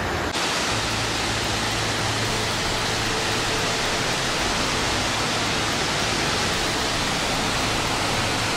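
Steady rushing roar of muddy floodwater pouring through a city street.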